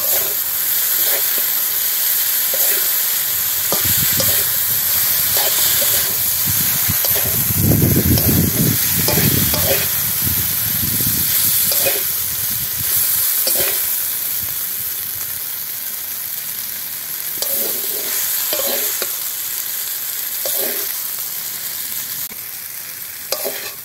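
Boiled chowmein noodles sizzling in hot oil in a kadai while a metal spatula stir-fries them, its short strokes scraping and tossing against the pan. The stirring is heaviest about a third of the way in, and the sizzle eases a little toward the end.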